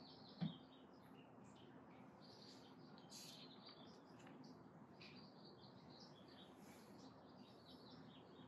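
Faint birdsong, with many short chirps from small birds scattered throughout. A single knock sounds about half a second in.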